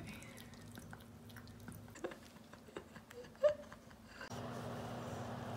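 Faint drips and small splashes of bath water around a kitten, with a brief pitched squeak about three and a half seconds in. A little after four seconds this gives way abruptly to a steady hum.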